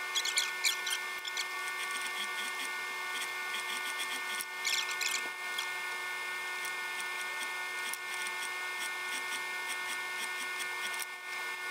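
Rustling and rubbing of mink fur and fabric lining being handled and positioned on a sewing machine bed, in scattered bursts, over a steady background whine.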